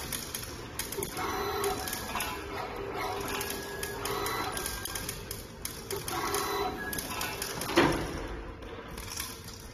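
Automatic servo-screwdriver screw-fastening machine running through its cycle: the gantry moves and the screwdriver spins screws in, giving a whine in short bursts about every two and a half seconds over a steady hum. A single loud knock comes near the end.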